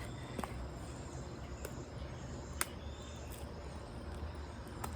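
Steady outdoor background rumble with faint insect chirping and a few short sharp clicks, the sharpest about two and a half seconds in.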